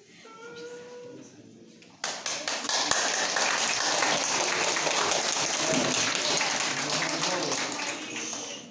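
Audience applauding: clapping breaks out suddenly about two seconds in, holds steady and loud, then fades near the end.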